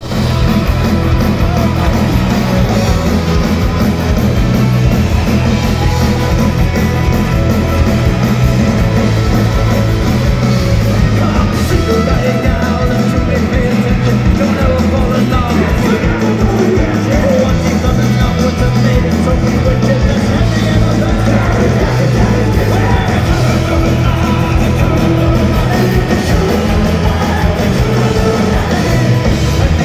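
Celtic punk rock band playing live at full volume: electric guitars, bass and drums, with a male singer's vocals over them, heard from the audience.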